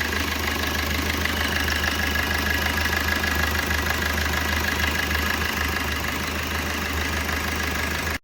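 Maruti Vitara Brezza engine idling steadily, freshly repaired after a rocker arm noise; the mechanic judges the sound fully normal now, with the earlier knocking gone.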